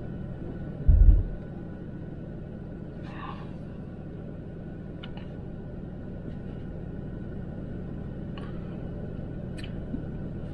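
Steady low road rumble inside a moving pickup truck's cab, with one short, loud low thump about a second in.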